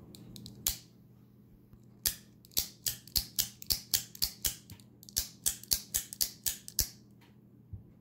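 Small keychain OTF (out-the-front) knife's spring-loaded blade snapping out and back. One sharp metallic click, then a fast run of about twenty clicks, roughly three to five a second, as the blade is fired and retracted again and again.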